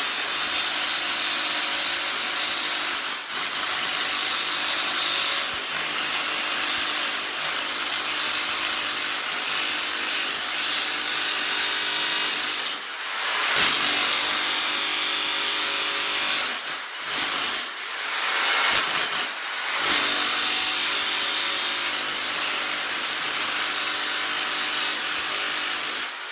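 Rotary hammer with a flat chisel blade running continuously, chipping thinset and self-leveling compound off a concrete slab. The tool stops briefly about halfway through and several more times a few seconds later before running on.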